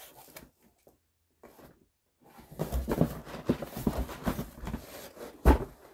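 Large cardboard shipping box being handled and its flaps pulled open: a run of scrapes, rustles and knocks starting about two seconds in, with one loud thump near the end.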